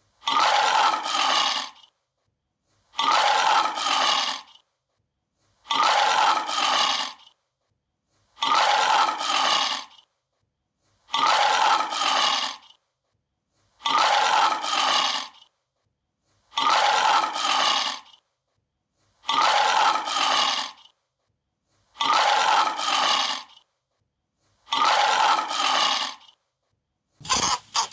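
Lion roar repeated about ten times at even intervals, each roar lasting under two seconds with silence between. Just before the end a different run of short, quick calls begins.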